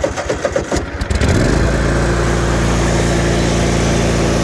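25 hp Kohler engine on a Troy-Bilt Mustang zero-turn mower being cranked by its electric starter, catching about a second in and then running steadily.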